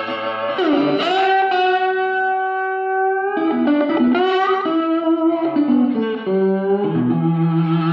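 Outro music: guitar playing held notes, with a note bent down and back up about a second in.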